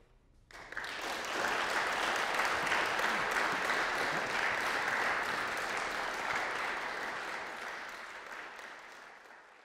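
Audience applauding after a brief hush, breaking out about half a second in, holding steady, then slowly fading toward the end.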